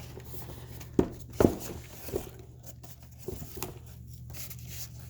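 Cardboard keyboard box being handled and opened: a few sharp knocks, two loud ones just after the first second, with packaging rustling in between, over a low steady hum.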